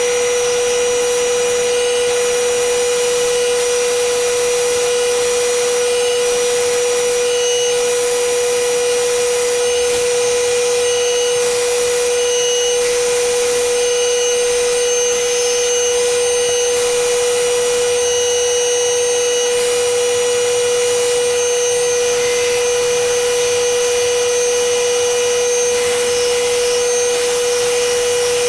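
Belt grinder running steadily with a constant whine, a worn 40-grit belt grinding a kitchen knife handle to shape.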